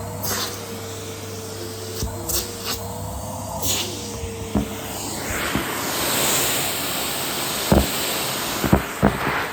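Henry vacuum cleaner running, its motor a steady whine that wavers a little in pitch for about the first half, then giving way to a broader rush of air. A few sharp knocks come near the end.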